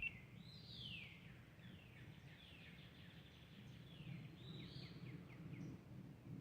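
Faint birdsong: a few phrases of quick, downward-sliding whistled notes over a low steady background rumble.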